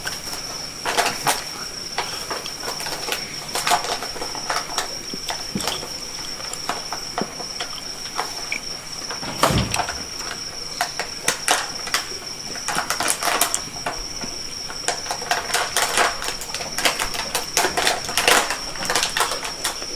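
Close-up eating sounds: chewing, lip smacks and wet clicks coming in irregular clusters as snail satay and rice are eaten by hand, with one heavier thud about halfway through. A steady high-pitched insect trill, like crickets, runs behind.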